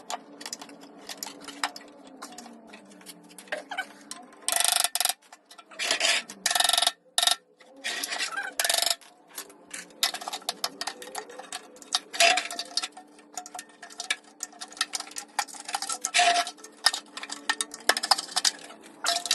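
Metal tools and parts clicking, tapping and knocking against the washing machine's drum and bearing housing during bearing removal. A few louder scraping bursts come between about five and nine seconds in, over a faint steady hum.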